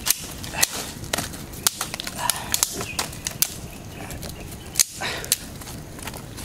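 Wood campfire crackling, with sharp irregular pops and snaps, the loudest a little under five seconds in.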